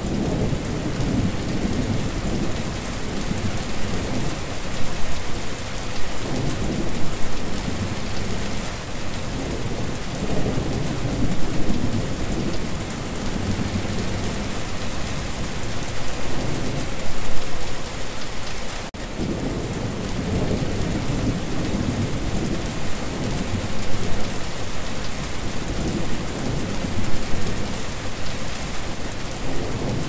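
Steady rain pattering onto wet, puddled ground, a dense even hiss with a deep uneven rumble underneath that swells and fades every few seconds. There is a momentary break in the sound about two-thirds of the way through.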